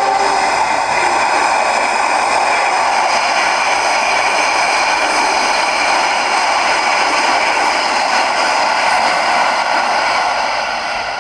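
Train running past with a loud, steady rush of noise, which begins to fade near the end. A locomotive horn note dies away just at the start.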